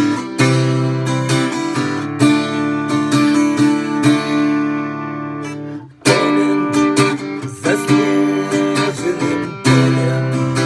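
Instrumental passage of a song, with strummed acoustic guitar chords carrying the music. It breaks off briefly about six seconds in, then comes back in.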